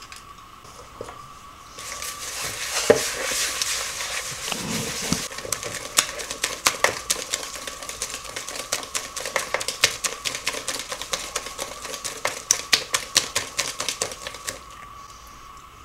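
Wire whisk beating eggs and sugar in a bowl by hand: rapid, uneven clicking and scraping of the wires against the bowl, starting about two seconds in and stopping shortly before the end.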